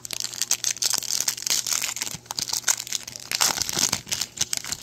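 Plastic wrapper of a Panini Mosaic basketball card pack being torn open and crinkled as the cards are pulled out: a dense run of crackles.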